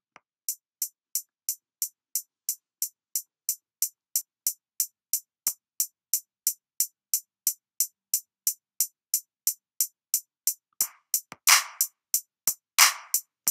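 Boutique 808 drum machine pattern at 180 BPM: a steady high ticking, like a closed hi-hat, three times a second. About eleven seconds in, a second drum part comes in with a louder, noisier hit about once a bar and short low hits.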